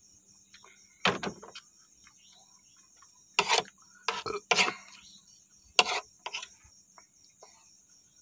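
A metal spoon scraping and knocking against a wooden tray as noodles are gathered: about six short, loud clatters, a few close together in the middle. Crickets chirr steadily underneath.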